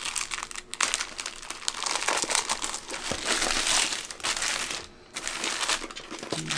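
Clear plastic packaging sleeve crinkling and rustling under the hands as a rolled canvas is handled inside it, with a brief lull about five seconds in.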